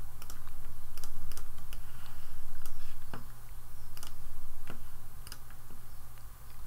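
Computer mouse and keyboard clicks, sharp and irregularly spaced, as files are selected and imported, over a steady low hum.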